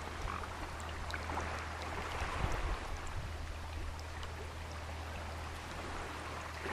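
A thin rivulet trickling over pebbles, a steady soft water hiss with small scattered plinks, and a steady low rumble underneath.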